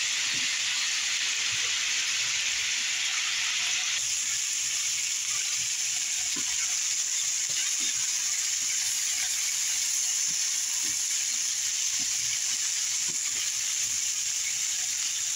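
Sliced zucchini, bell peppers and onion sizzling in oil in a non-stick frying pan, a steady hiss, while a spatula stirs them with faint scrapes and taps.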